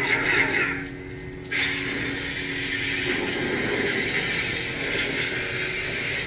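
Sabertrio CFX lightsaber playing the Nightstorm sound font through its speaker: the blade's steady electric hum, with a harsher, hissing layer that cuts in abruptly about a second and a half in and holds.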